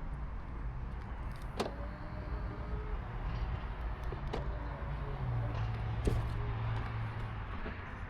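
Three sharp clicks a couple of seconds apart in a Mazda 6e, each followed by a faint short tone. A small electric motor hums steadily for about two seconds near the end.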